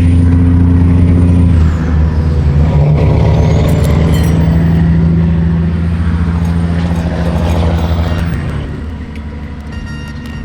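A large engine running loud and steady with a deep hum. Its pitch drops a little about two seconds in, and the sound fades away near the end.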